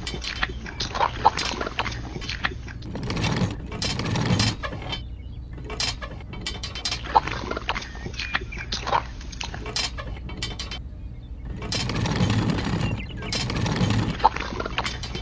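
Irregular clicks and scrapes from a miniature plastic wheelbarrow and toy cement mixer being handled by hand as wet cement is tipped and poured, over a low steady hum.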